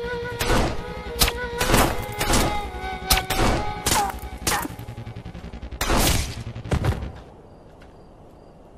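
Handgun shots in a film gunfight: about a dozen sharp shots at an irregular pace over background music, stopping about seven seconds in.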